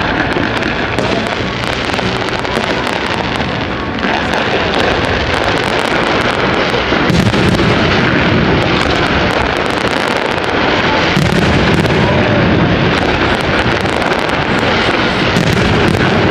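Fireworks display: a dense barrage of bangs and crackling that never lets up. It grows a little louder and deeper about seven seconds in, and again from about eleven seconds.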